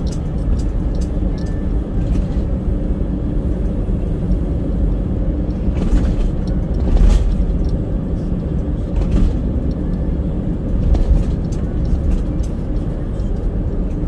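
Road noise inside a moving car at speed: a steady low rumble of tyres and engine, with a few brief louder swells, the strongest about halfway through.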